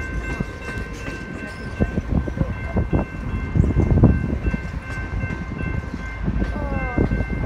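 Grand Canyon Railway passenger train rolling past at a grade crossing: a low rumble of steel wheels with irregular clacks and knocks as the car trucks pass over the crossing. Over it, a steady high-pitched ringing tone that stops about six and a half seconds in.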